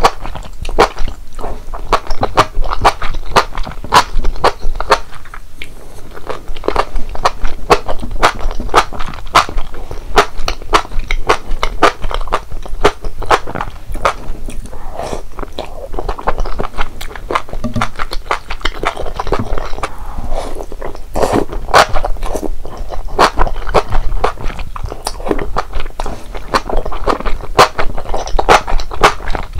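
A person eating malatang close to the microphone: continuous wet chewing with rapid mouth clicks and crunches.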